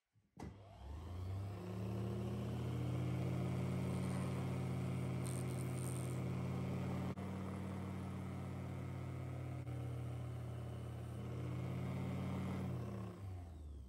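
Small electric lathe motor spinning up, with its hum rising in pitch over the first couple of seconds. It runs steadily, then winds down and stops near the end, turning a watch case for polishing.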